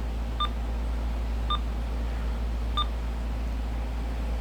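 Three short key-press beeps from a Uniden BC370CRS scanner radio as its date is set, about a second apart. A steady low hum runs underneath.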